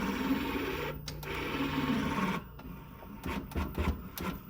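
AC servo motor in a sim-racing actuator, run on a 220 V supply, holding its commanded position under torque. Its coils make a steady electrical hum and hiss from the drive's fast current switching. This drops away a little past halfway, and a few light clicks follow.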